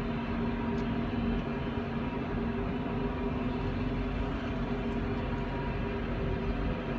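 Steady hum and rumble of an incline railway's cable haulage machinery running, its large bullwheels turning the hauling cable, with a few steady tones held throughout.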